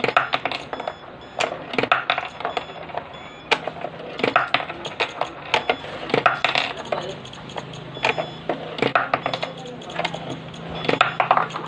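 Philippine peso coins being dropped one after another into a piso WiFi vending machine's coin acceptor, giving a string of irregular sharp metallic clicks and clinks.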